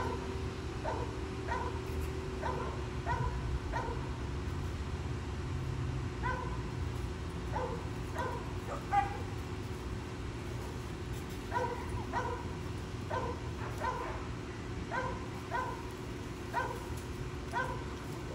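A dog barking over and over, short high barks about two a second, with a brief pause about halfway through, over a steady low hum.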